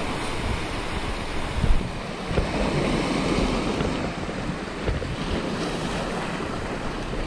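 Sea surf washing and foaming over a rocky reef flat, with wind buffeting the microphone. The wash swells about two and a half seconds in.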